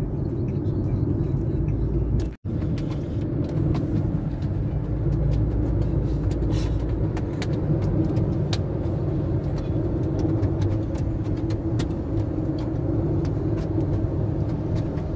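Steady road and engine rumble inside a moving car's cabin, with a brief sudden drop-out about two seconds in.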